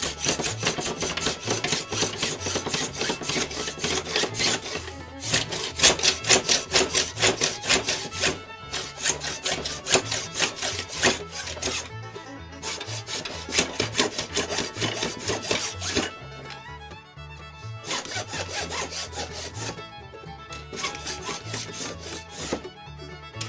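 Small block plane and scraper stroked rapidly along a glued-up rod blank, shaving off dried excess glue: quick rasping strokes in runs of a few seconds with short breaks between them. Background music plays underneath.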